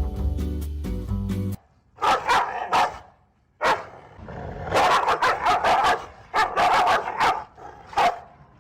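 Background music that cuts off suddenly about a second and a half in, followed by a dog barking in quick runs of several barks with short pauses between them.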